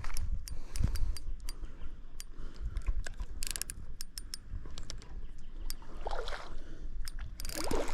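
Fishing reel being worked against a hooked fish, giving off many sharp, irregular clicks, over a low rumble.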